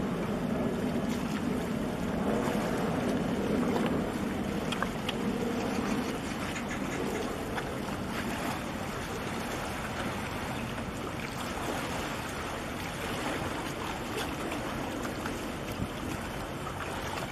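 Steady low rumble of a container ship under way, mixed with wind and water noise.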